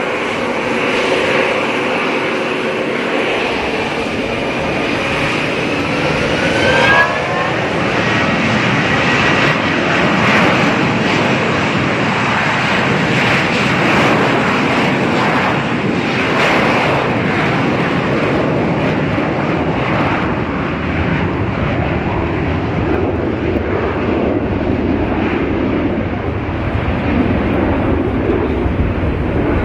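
Jet airliner engines running, a loud steady rush of engine noise, with a short rising whistle about seven seconds in.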